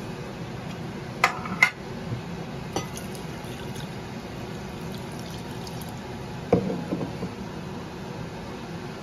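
Water poured from a glass jug into a plastic mixing bowl of crushed spices. Two sharp clinks come a little over a second in, and there is a knock about six and a half seconds in.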